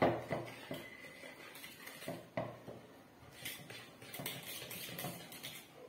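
Wire whisk beating butter and egg in a glass mixing bowl: irregular clinks and scrapes of the metal wires against the glass. Strongest at the start, thinning out around the middle, then quickening again near the end.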